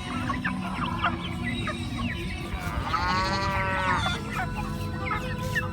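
Chickens clucking and calling, with a rooster crowing once about three seconds in.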